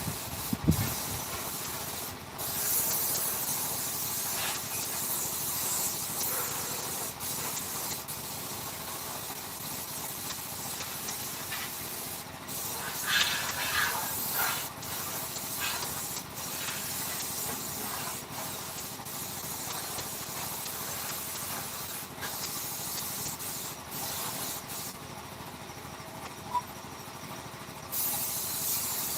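Steady spraying hiss that stops briefly several times and is louder for a moment about halfway through.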